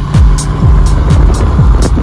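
Hip-hop instrumental beat: deep bass kicks that slide down in pitch about twice a second, with sharp hi-hat ticks above.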